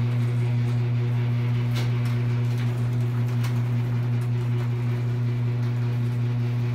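Electric garage door opener motor running with a steady hum as the sectional garage door rises, with a few faint clicks.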